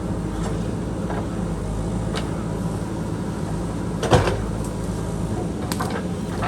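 JCB backhoe loader's diesel engine running steadily under work, with a few short knocks from the machine, the loudest a little past the middle.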